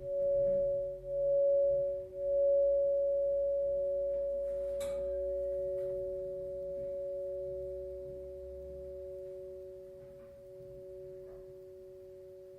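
Two Crystal Tones crystal singing bowls, F sharp and C sharp, ringing together a perfect fifth apart. The higher note wavers for the first couple of seconds, then both hold and slowly fade. A faint click comes about five seconds in, and the lower note stops near the end.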